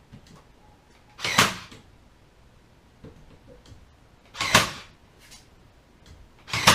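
Powertough 20V cordless 18-gauge brad nailer firing three times, each shot a short, sharp clack as a 1 1/4 inch brad is driven into wood. The shots are spaced about three seconds, then two seconds, apart.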